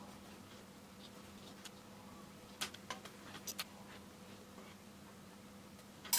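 A paintbrush lightly tapping and clicking against a plastic watercolour palette as paint is picked up and mixed: a few small irregular clicks in the middle and a sharper clack at the end, over a faint steady hum.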